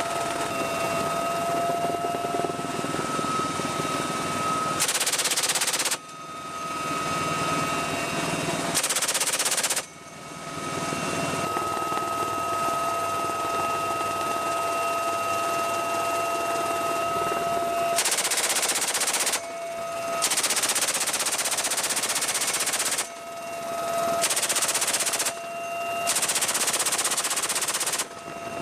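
Helicopter door gun on a UH-1Y Venom firing six long bursts, each a continuous rattle lasting one to three seconds. Between bursts the helicopter's turbines and rotor run with a steady whine.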